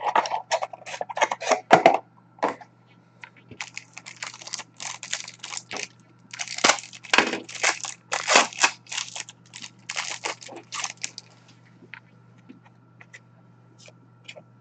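Trading card pack wrappers being torn open and crumpled: quick runs of sharp crackling rips and rustles, which thin out to a few faint ticks after about eleven seconds.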